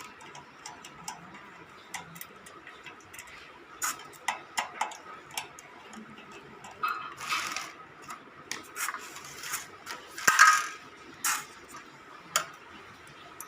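Irregular light clicks and knocks, with a few short scraping or rustling noises, from ceiling fan parts and tools being handled during assembly.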